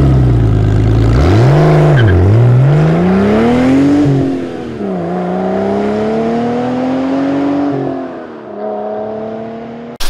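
Car engine revving up through the gears. It starts suddenly, and its pitch climbs, drops back and climbs again three times.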